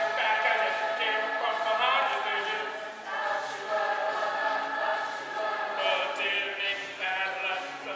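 Musical-theatre cast singing together as a chorus, with backing music, in a live stage performance.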